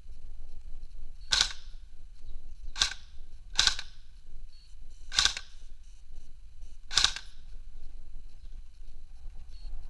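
Airsoft gun fired in five single shots, sharp cracks spaced unevenly between about one and two seconds apart.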